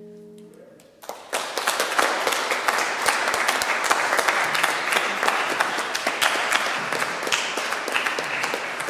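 The last note of a song fades out, then about a second in an audience starts applauding: dense hand clapping that keeps on and begins to thin near the end.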